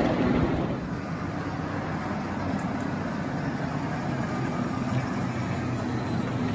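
Engine of a miniature railway locomotive running steadily, a little louder for the first second.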